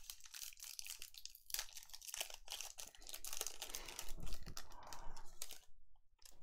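A trading card pack's wrapper being torn open and crinkled by hand: a run of dense crackling and rustling that stops near the end.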